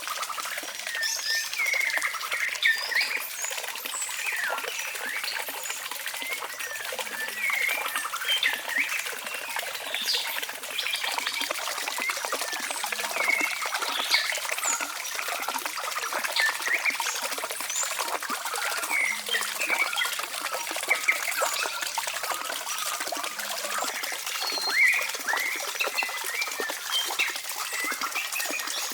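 Many short, high chirps and squeaks from animals, several a second, over a steady hiss.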